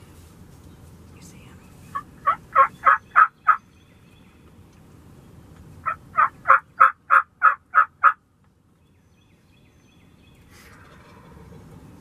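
Turkey yelping: two series of loud, evenly spaced yelps, about three a second, six notes in the first run and eight in the second, a couple of seconds apart.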